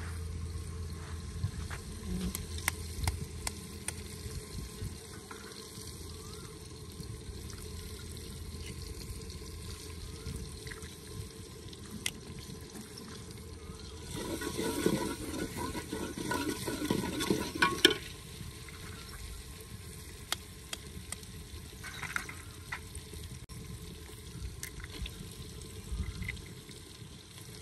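Liquid sloshing and splashing, loudest for about four seconds just past the middle.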